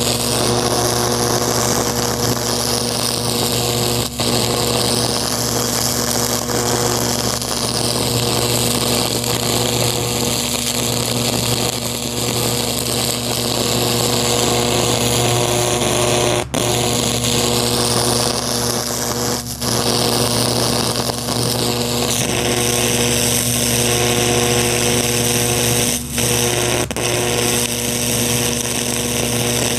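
High-voltage electric arc buzzing and crackling steadily as a metal electrode burns into pumpkin flesh, over a steady electrical hum. The arc drops out for a moment four times.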